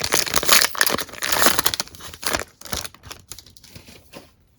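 Foil wrapper of a football trading-card pack being torn open and crinkled: loud crackly crinkling for about two and a half seconds, then quieter rustles and clicks that fade out.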